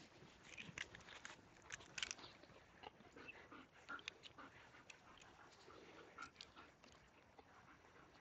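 Faint sounds of a dog close by, mouthing and sniffing: soft, irregular clicks at a near-silent level.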